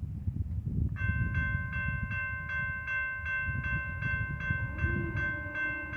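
Railroad grade-crossing warning bell starting to ring about a second in, striking evenly about two and a half times a second: the crossing has activated for an approaching train.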